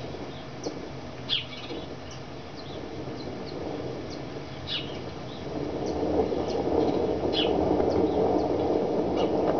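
Short, high bird chirps, one at a time at irregular intervals, over a steady low rushing noise that grows louder a little past halfway.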